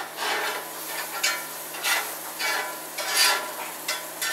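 Onions sizzling as they fry in grease in a frying pan, with a spoon scraping and stirring through them in repeated strokes, about six in all.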